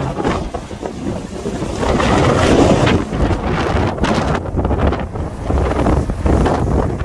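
Strong, gusty wind buffeting the microphone over the low rumble of a MAN KAT1 truck's diesel engine as the truck pulls past, towing a camper van. The wind is louder from about two seconds in.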